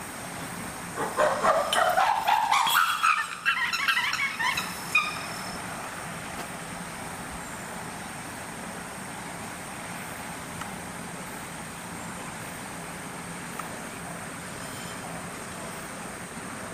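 Chimpanzee calls about a second in, rising in pitch for about two seconds into a loud climax and ending after about four seconds.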